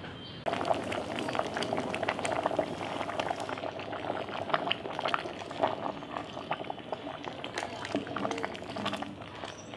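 A pot of greens boiling hard: a dense, crackling run of bubbling and popping that starts suddenly about half a second in.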